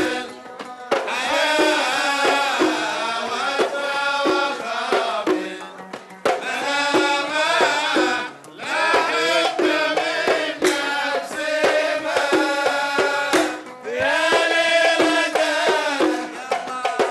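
Kuwaiti fann al-sawt folk song: a group of men singing in phrases over hand drums and hand clapping, with short breaks between phrases.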